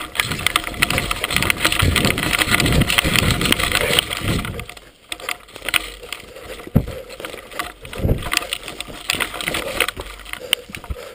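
Rustling, crackling movement noise close to the microphone, heavy for the first four or five seconds, then quieter with a few sharp knocks.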